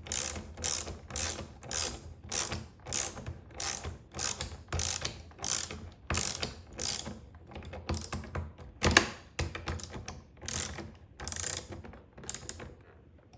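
Socket ratchet clicking in a steady run of short strokes, about one and a half to two a second, as the 19 mm aluminium connector is tightened down; the clicking stops near the end.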